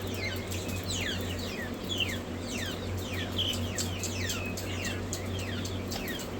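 Many young birds peeping at once, a dense run of short, high, falling peeps overlapping without a break, over a steady low hum.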